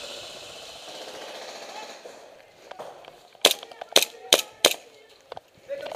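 Four sharp shots in quick succession, within about a second, from a KJW M1911 gas-blowback airsoft pistol, starting about three and a half seconds in.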